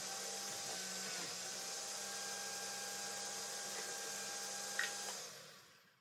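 Electric food processor running steadily with its shredding disc spinning. Near the end there is a click, then the motor is switched off and spins down to a stop.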